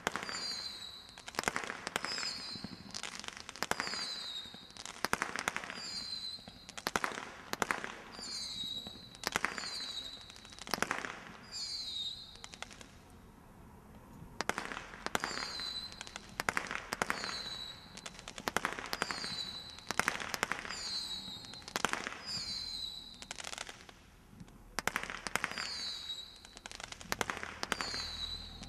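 Air-Strike 144-shot combination roman candle firing, about one shot a second, each shot a sharp pop followed by a short falling high-pitched note. The firing pauses briefly twice before starting up again.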